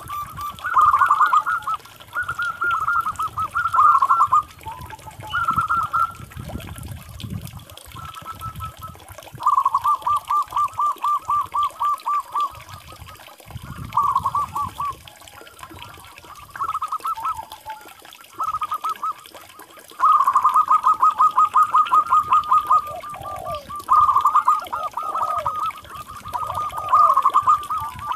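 Zebra doves (perkutut) cooing: about a dozen bursts of rapid staccato notes, about seven a second, with short pauses between bursts.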